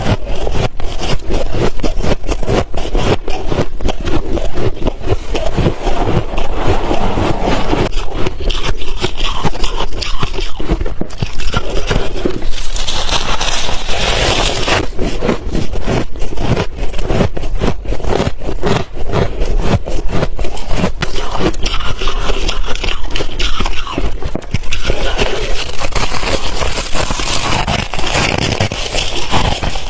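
Close-up crunching and chewing of hard refrozen ice and freezer frost: dense, continuous crackling crunches, many per second.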